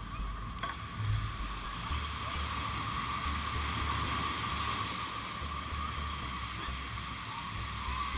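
Ocean waves breaking and washing on a beach, a steady rushing, with wind rumbling on the microphone and a steady high whine alongside.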